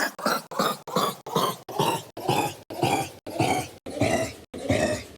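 A burping duck's repeated short burp-like calls, about four a second at first, slowing to under two a second and dropping steadily in pitch.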